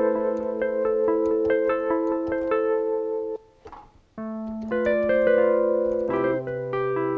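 Yamaha MX49 keyboard playing sustained chords on a Wurlitzer-style electric piano patch, with a short break in the playing about halfway through.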